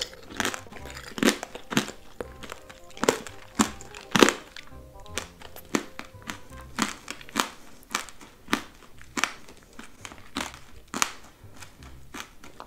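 Close-miked crunching of a hard sugar-glazed strawberry being bitten and chewed, with sharp crunches coming one every half second to a second. Soft background music plays under it.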